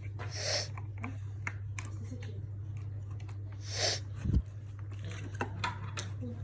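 Clicks, knocks and soft rustling swishes from handling the plastic robot vacuum and its battery, with a louder thump about four and a half seconds in, over a steady low hum.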